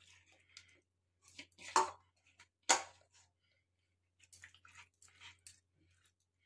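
Hand rubbing wet spice paste into a raw fish head in a stainless steel bowl: soft squelching and scraping, with two sharper knocks about two and three seconds in and a run of small clicks and squelches later.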